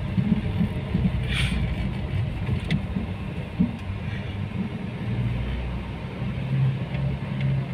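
Car engine and road rumble heard from inside the cabin while driving slowly: a steady low hum, with a couple of faint clicks in the first few seconds.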